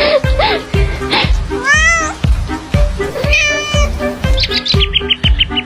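Cat meows over a music track with a steady beat, the meows rising and falling in pitch; a quick run of short high notes comes near the end.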